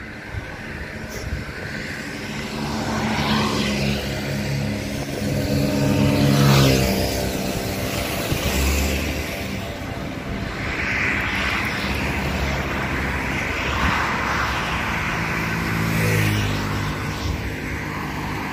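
Car engine and road noise while driving, the engine note shifting in pitch a few times as it speeds up and changes gear.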